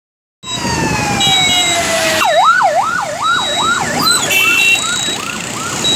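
Electronic vehicle siren: a long falling wail, then about two seconds in it switches to a fast up-and-down yelp, about three sweeps a second, which grows fainter. Road traffic runs underneath.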